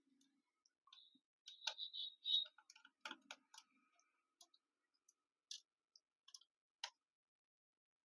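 Scattered light clicks and taps of small tools and parts being handled on a laptop case during disassembly, with a brief squeak about two seconds in and a louder cluster of clicks about three seconds in.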